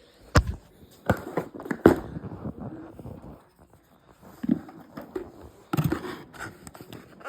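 Handling of cardboard and plastic toy packaging: a few sharp clicks and knocks with scraping and rustling between them.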